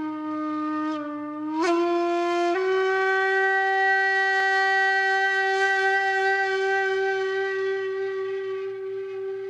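Music: a wind instrument holds one long, breathy note, rising in two quick steps about two seconds in, then sustained and slowly fading.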